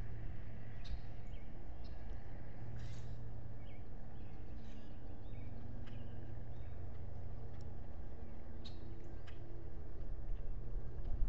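Outdoor ambience at an osprey nest camera: a steady low rumble with scattered faint, short chirps of distant birds.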